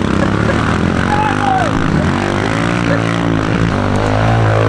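Kawasaki KLX110 pit bikes' small four-stroke single-cylinder engines running hard, their pitch rising and falling as the riders race around the track.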